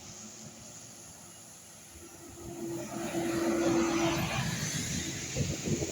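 A road vehicle passes on a wet road: tyre hiss builds about halfway through and fades, with a steady hum underneath.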